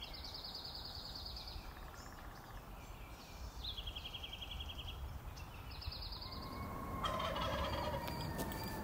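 Great horned owlets giving raspy begging calls: three rasps of about a second each, made of rapid pulses, at two different pitches in turn. A faint steady tone comes in near the end.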